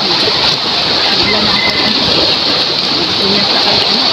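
Steady rush of wind and choppy seawater washing around moored outrigger boats.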